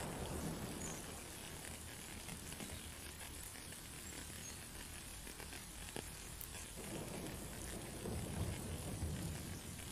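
Steady hiss of rain. A low rumble of thunder swells from about seven seconds in.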